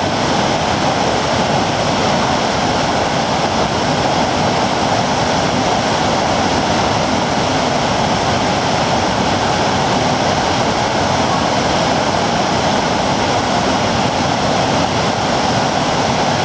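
Large waterfall, its falling water making a loud, steady, unbroken rush.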